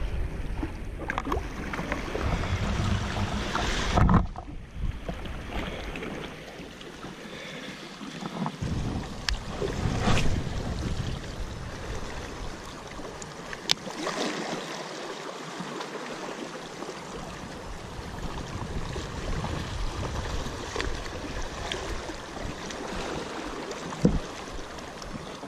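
Sea water sloshing and lapping at a rocky shore, with wind rumbling on the microphone in gusts and a few sharp clicks and knocks. The loudest is a single thump about four seconds in.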